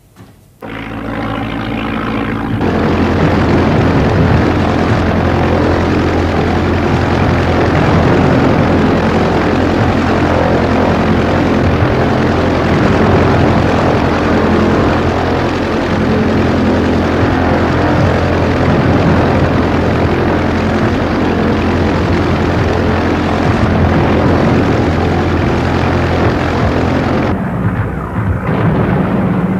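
Propeller aircraft engine running loudly and steadily. It comes in about half a second in, gets louder about two and a half seconds in, and drops away shortly before the end.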